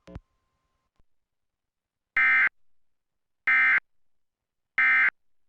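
Emergency Alert System end-of-message signal: three short, identical bursts of digital data tones, a little over a second apart, closing the alert.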